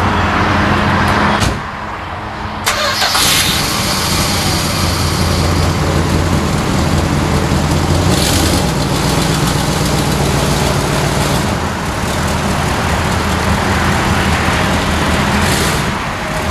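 The 1962 Chrysler 300's V8 engine running steadily at idle, with a sharp click about two and a half seconds in and a few short bursts of hiss over the engine.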